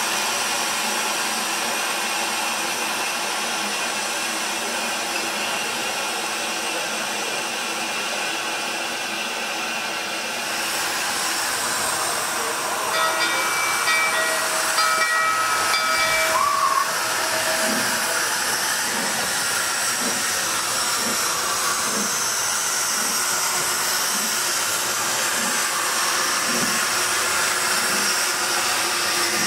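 Steam hissing steadily from standing narrow-gauge steam locomotives. About halfway through, a yard bell is rung several times. Then the steam locomotive Palmerston moves off slowly, its exhaust beats coming about once a second as it pushes another locomotive.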